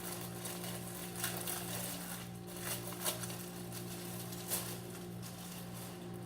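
Scattered clicks and crinkles of objects being handled and moved, about six in all, over a steady low electrical hum.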